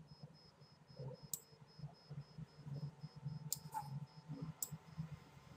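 A few sharp computer mouse clicks, two in quick succession partway through, over a low background hum and a faint, steady, high-pitched pulsing tick.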